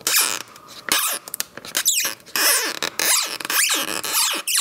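Battery adhesive pull tab stretching slowly out from under a tablet battery, giving a run of squeaks that slide down in pitch as the strip gives way. It is the adhesive releasing the battery while the tab is pulled gently so it does not snap.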